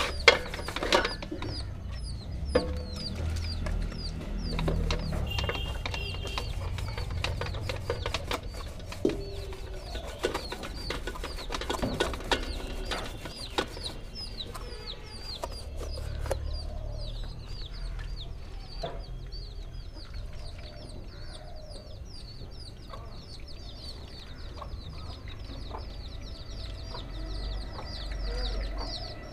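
Wet paintbrush scrubbing a soapy circuit board in an aluminium basin, with scattered light clicks and knocks from the board and brush, over a constant run of short, quickly repeated falling chirps from birds. Near the end, water is poured over the board.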